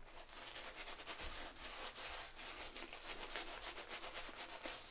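Shaving brush with a synthetic fan knot scrubbing soap lather onto two days' stubble in quick, repeated strokes: a soft, rapid bristly rubbing.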